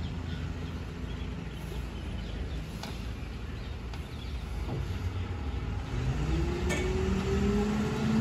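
Diesel engine of a tipper truck running as it drives slowly over dirt ground, a low steady rumble. About six seconds in it grows louder and a whine comes in, rising slowly in pitch as the engine revs up.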